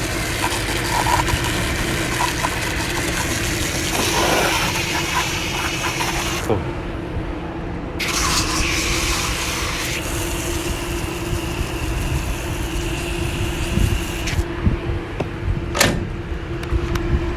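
Water rushing into and through a jug as it is rinsed out, starting and stopping twice, over the steady hum of a running rooftop air-conditioning unit. One sharp click near the end.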